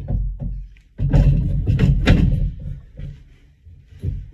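Knocks and thumps of a boat's front access hatch being pushed and seated into its deck opening on a test fit, with a quick run of loud knocks between one and two and a half seconds in and one more thump near the end.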